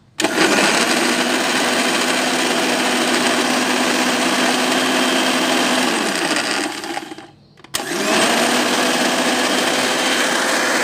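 National electric blender running on a thick, oily spice paste of chili, shallot, garlic and candlenut. It switches on, runs steadily for about six and a half seconds, winds down and stops briefly, then starts up again.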